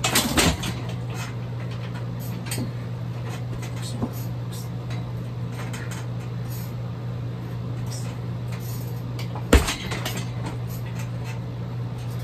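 Kicks striking a heavy bag: a quick cluster of sharp thuds right at the start and one hard hit about nine and a half seconds in, with a few faint clicks in between, over a steady low hum.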